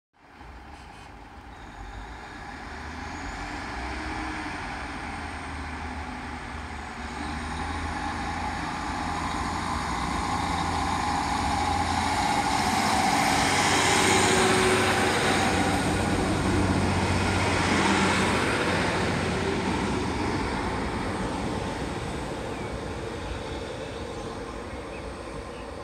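Diesel multiple unit train running along the platform, its engine and wheel noise building to a peak about halfway through, then fading as the train moves away down the line.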